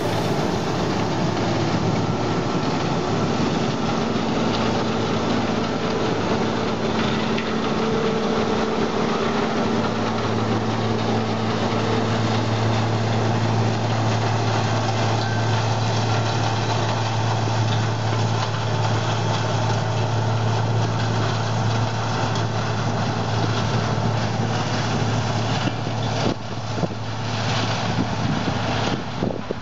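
Claas Tucano 430 combine harvester running steadily as it harvests grain maize through its maize header, a continuous machine drone. A deeper steady hum comes in about ten seconds in, and a few uneven clatters sound near the end.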